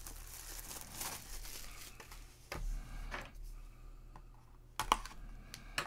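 Plastic shrink wrap crinkling and tearing as a sealed box of trading cards is unwrapped. It is followed by a low knock about two and a half seconds in and a few sharp clicks near the end as a box cutter is worked into the box's seal.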